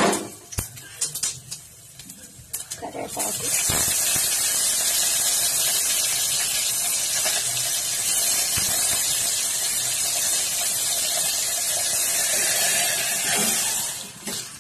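Curry leaves dropped into hot tempering oil with mustard seeds and cumin, spluttering in a loud, steady sizzle that starts suddenly about three seconds in and dies down near the end. A few light clicks come before it.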